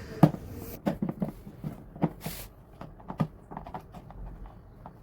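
Irregular light knocks and clicks, about a dozen, from handling an instant water heater and tools as work on its element begins, with a brief hiss a little past two seconds in.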